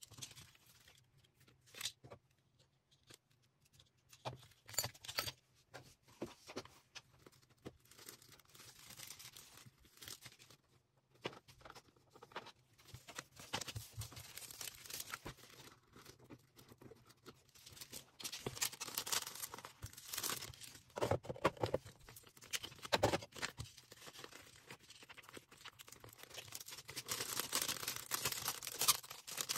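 Packaging being handled while an order is packed: irregular rustling, crinkling and tearing, with scattered taps and clicks. The noise grows denser in the second half, with a longer stretch of tearing near the end.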